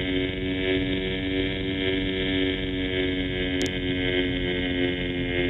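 Small propeller plane's engine at takeoff power, a steady multi-pitched drone heard from inside the cabin as the plane leaves the runway and climbs.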